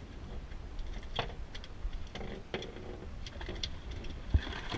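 A summer flounder (fluke) flapping on a fiberglass boat deck: scattered slaps and taps, with one heavier thud near the end.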